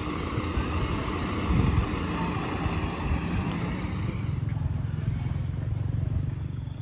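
Engines running on the road beside parked fire trucks, a steady low rumble with an engine hum, and a car driving past. There is a surge about one and a half seconds in, and the hum is strongest in the second half.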